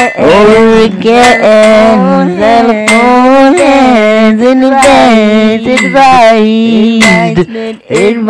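Music: a wordless sung or vocalised melody gliding over a steady held drone note, with a short break near the end.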